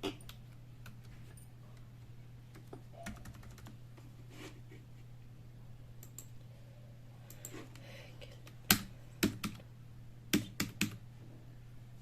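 Keys of a Dell KB216 membrane keyboard being pressed one at a time: scattered soft keystrokes at first, then a quicker run of louder keystrokes about nine seconds in.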